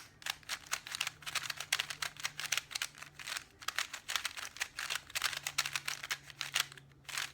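A new, unlubricated HIG plastic 3x3 cube being turned quickly: a rapid, irregular run of clicking and clacking as the layers turn and catch. The cube still feels sandy and needs its lubrication worked in.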